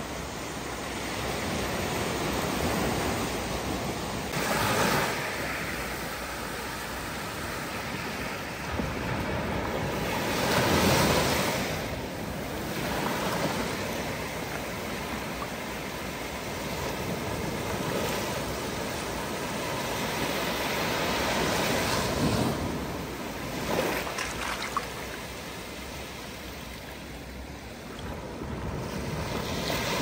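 Small ocean waves breaking on a sandy shore and washing up the sand: a steady rush of surf that swells several times as waves break, loudest about eleven seconds in.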